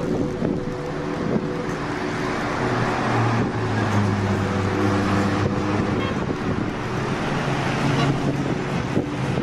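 Car being driven, heard from inside the cabin: a steady hum of engine and tyre road noise. A deeper engine drone grows stronger for a few seconds in the middle.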